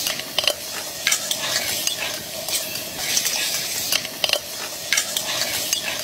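Food sizzling and frying in a metal cooking pot while a spoon stirs it, scraping and clinking against the pot's sides several times.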